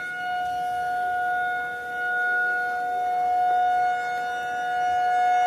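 Rotating outdoor tornado warning siren sounding a steady tone that holds its pitch, loudness rising and falling a little as the horn turns.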